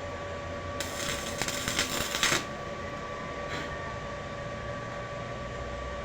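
Electric arc welding: a crackling, sputtering burst of the arc lasting about a second and a half, starting about a second in, with a short blip a little later. Between and after, a steady hum with a faint whine.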